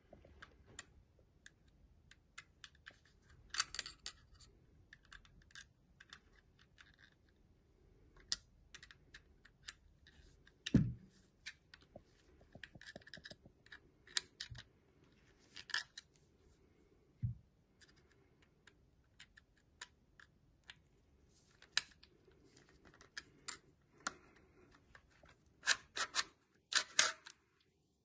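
Saw chain links clinking and rattling against a chainsaw guide bar as the chain is handled and tensioned, with small metallic clicks from a screwdriver at the tension screw. There are two dull knocks, one about eleven seconds in and one about seventeen seconds in, and a denser burst of clinking near the end as the chain is drawn around the bar.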